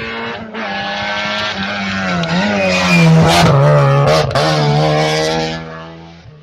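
Rally car approaching and passing at speed under hard throttle, its engine note climbing with a brief break about half a second in. It is loudest about three to five seconds in, then fades as it drives away.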